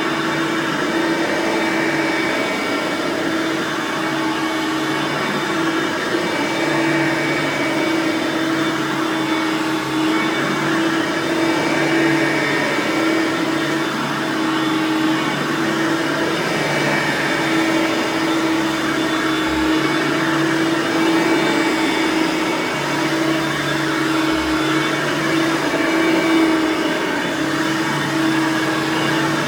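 Hoover Platinum Collection lightweight bagged upright vacuum (model UH30010, 5.5-amp direct-air motor) running steadily with an even hum.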